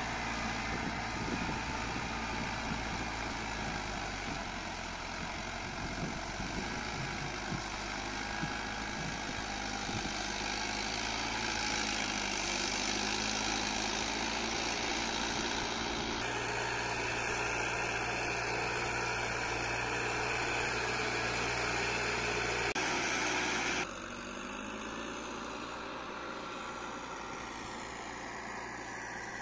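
A farm tractor's diesel engine runs steadily under load as it drags a levelling plank through flooded paddy mud. The sound changes abruptly about halfway through and again near the end, when it drops to a quieter, more distant engine drone.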